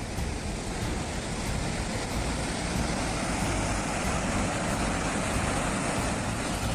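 Floodwater rushing in a steady, even roar, a muddy torrent carrying debris.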